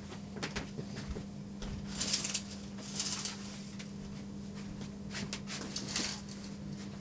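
Quiet room with a steady low hum, broken by scattered faint clicks, knocks and short rustles.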